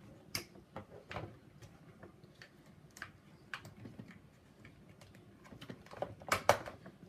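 Light plastic clicks and taps from hands handling a toy RC skid-steer loader while its battery is plugged in, irregular and scattered, with a louder pair of clacks near the end.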